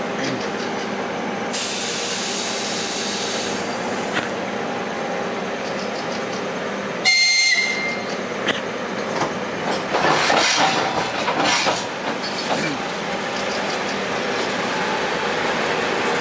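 ED4M electric multiple unit running along the platform with a steady rumble. A burst of hiss lasts a couple of seconds near the start. A short, high whistle blast sounds about seven seconds in, and the wheels clatter over the rails from about ten seconds.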